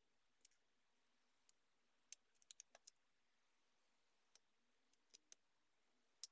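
Faint handling clicks and taps from a slim metal pointed tool working against the edge of a tablet touch-screen glass panel on paper, about a dozen in all, with a quick run of them about two to three seconds in; otherwise near silence.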